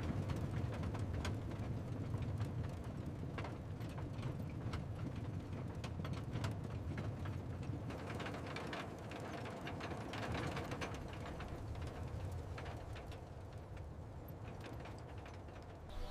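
Irregular mechanical clicking and clatter over a steady low rumble.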